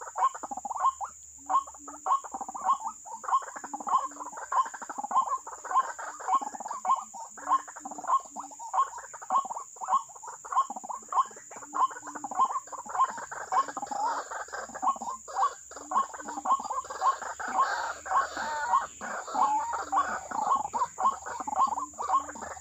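White-breasted waterhen calling, a loud harsh call repeated over and over at about one and a half a second, with a faint steady high-pitched hum underneath.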